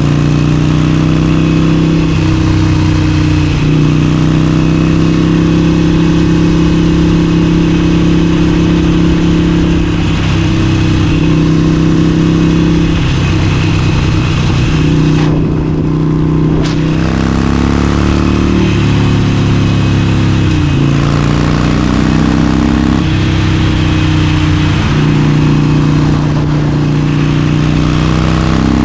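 Harley-Davidson Forty-Eight's air-cooled 1200 cc V-twin running under way at speed. The engine note steps up and down in pitch several times as throttle and gears change.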